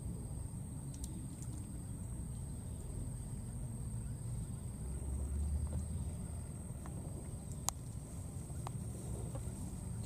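Outdoor background: a steady low rumble with a faint steady high whine and a few isolated sharp clicks, the loudest about three-quarters of the way through.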